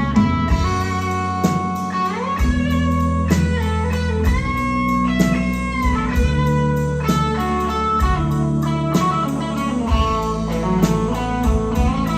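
Live rock band playing an instrumental break: an electric guitar lead with bent notes over bass and a steady cymbal beat, with no singing.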